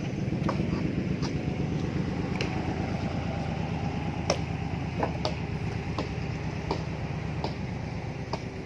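A vehicle engine running at a steady low rumble, with scattered sharp clicks over it.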